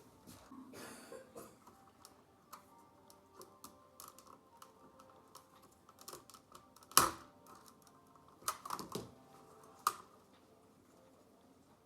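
Small, scattered clicks and taps of plastic parts being handled as a gauge needle is pried off with a needle removal tool and the faceplate lifted from an instrument cluster; the sharpest click comes about seven seconds in, with a few more shortly after.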